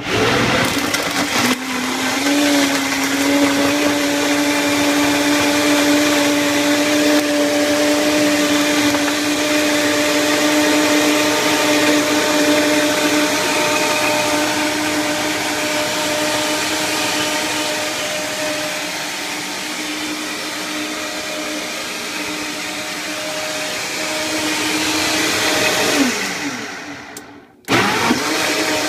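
High-powered countertop blender running, blending a thick smoothie of greens, fruit and seeds. The motor starts and climbs to speed over the first couple of seconds, then holds a steady high-speed run. Near the end it winds down with a falling pitch, stops for about a second, and starts again.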